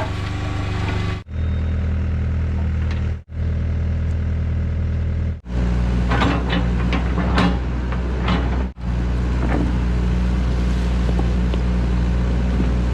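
Excavator diesel engine running steadily under work, with a cluster of sharp clanks and scrapes from about six to eight and a half seconds in. The sound drops out briefly four times.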